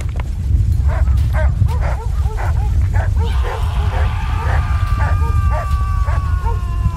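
Dogs barking and yelping over a deep continuous rumble, the sound of the earthquake. From about three seconds in, a long drawn-out high tone joins, slowly falling in pitch.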